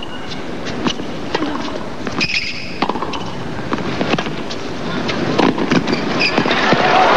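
Tennis ball struck back and forth by rackets in a rally, sharp hits at irregular intervals over steady crowd noise, with applause rising near the end.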